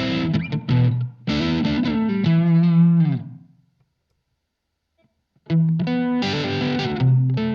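Electric guitar played through a Blackstar ID:Core Stereo 40 amplifier. A phrase ends on a held note with vibrato that dies away, there are about two seconds of silence, then playing resumes.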